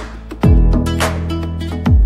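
Background instrumental music, with a deep drum hit about half a second in and another near the end.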